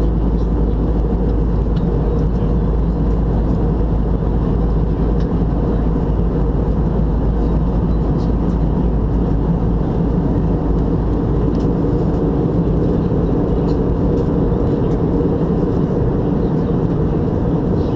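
Steady in-flight cabin noise of an Airbus A319 airliner: the constant low rumble of its jet engines and the airflow over the fuselage, heard inside the cabin.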